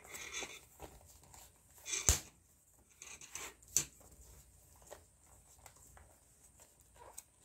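Leather glove lace being threaded and pulled through the lacing holes of a baseball glove's web: scattered short rustles and scrapes of leather on leather, the loudest about two seconds in.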